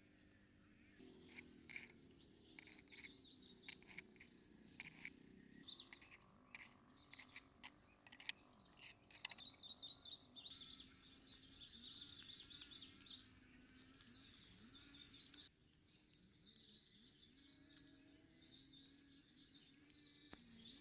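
Birds chirping steadily in the background, with a scatter of sharp clicks and taps over the first half.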